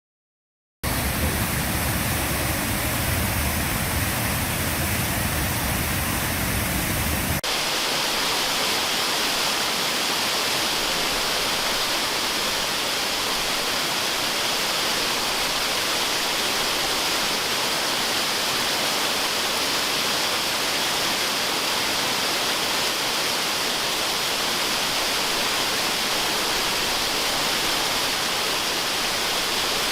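Waterfall rushing, a steady noise that starts abruptly about a second in. About seven seconds in it cuts hard to a different stretch of falling water, hissier and with less low rumble, which then runs on evenly.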